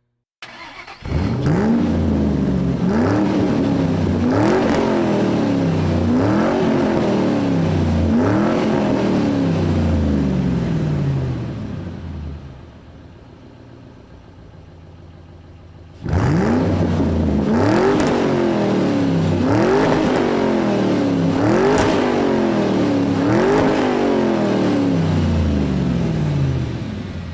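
An engine revved in repeated blips, about one every two seconds, the pitch jumping up quickly and sinking back each time. The revving stops about halfway through, leaving a much quieter engine sound, then starts again abruptly for another run of blips that fades near the end.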